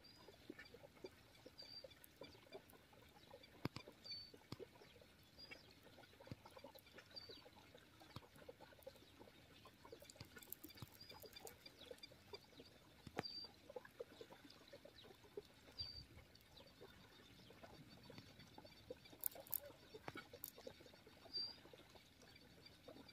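Faint outdoor ambience: short high chirps every second or two over a light hiss, with scattered small clicks and ticks.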